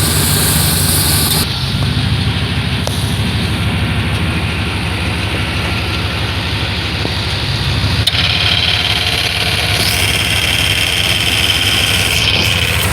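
A 5.7-litre 350 small-block V8 idling steadily. About eight seconds in there is a click, followed by a faint high steady whine over the idle.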